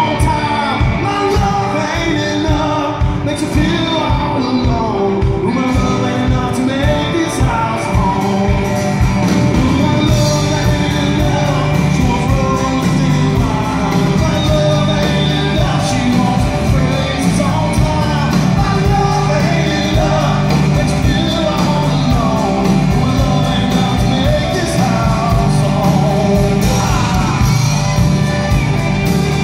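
Live rock band performing a song: singing over a full band with a steady drum beat.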